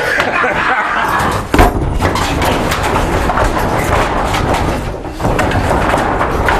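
A heavy blow against the building's nailed wooden wall boards, one loud thud about a second and a half in, with scattered knocks and rough clattering noise around it.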